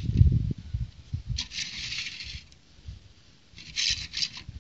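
Plastic brick-built toy car handled on a plastic plate: a dull bump near the start, then two short spells of light plastic scraping and rattling.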